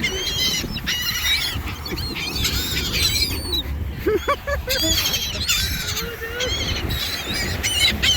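A flock of birds calling over one another in many short, overlapping cries, with a low steady rumble underneath.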